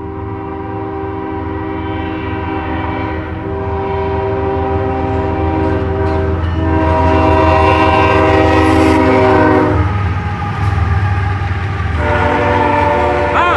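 CSX diesel freight locomotive's multi-note air horn blowing long blasts for a grade crossing as the train approaches, over the low rumble of the engines and wheels, which grows louder. The horn breaks off about ten seconds in and sounds again as the locomotive passes.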